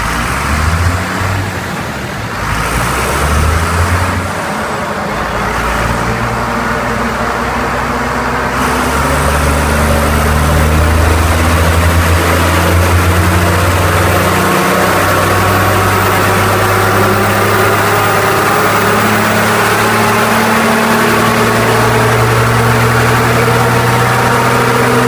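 First-generation Dodge Ram's 5.9 L Cummins 12-valve inline-six turbo diesel, with its injection pump turned up, running on a chassis dyno. The engine note builds over the first several seconds, then holds loud and steady, with a whine that climbs slowly in pitch over the second half.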